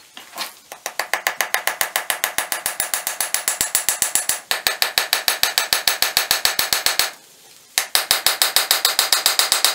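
Rapid, even metal-on-metal taps, about eight a second, of a small hammer peening over the end of a sword tang on an anvil. The taps run on for several seconds, break off for under a second near seven seconds in, then resume.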